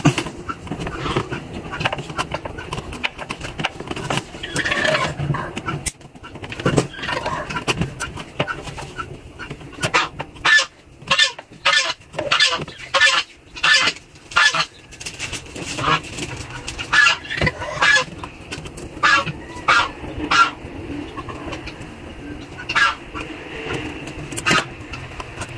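Chickens clucking in a run of short, sharp calls, thickest about ten seconds in and again near the middle to late part.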